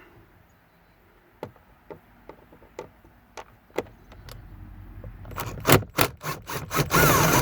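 Hard plastic dash parts around a car's gauge cluster being worked loose by hand: a few light clicks, then about five seconds in a busy run of scraping and rubbing with sharp snaps and a short squeak of plastic on plastic near the end.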